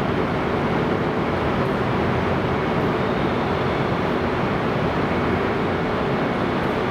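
East-i (E926) Shinkansen inspection train: a steady, even rail-vehicle noise with a faint low hum, neither building up nor fading away.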